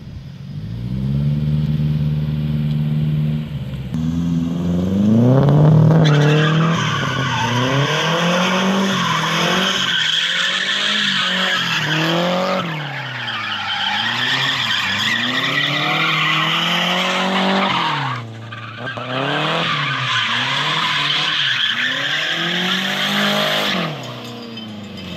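Nissan 240SX coupe drifting: the engine is held at high revs, then swings up and down about once a second as the throttle is worked. The rear tyres squeal and skid almost the whole time, easing off briefly once and stopping near the end.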